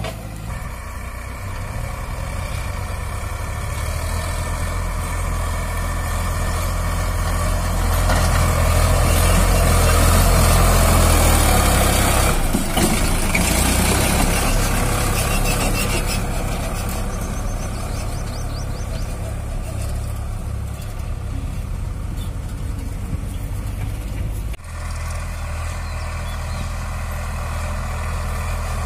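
Sonalika DI 47 RX tractor's three-cylinder diesel engine running steadily, pulling a fully loaded trolley. It grows louder for a few seconds around the middle.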